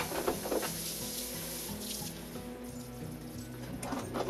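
Kitchen faucet running steadily into a sink of soapy dishwater, with a couple of light dish clinks near the end.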